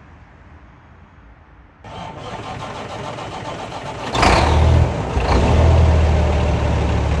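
CAT C13 diesel of a Kenworth W900B being cranked and started: a rising noise from about two seconds in, then the engine catches with a loud burst about four seconds in and settles into a steady, low idle.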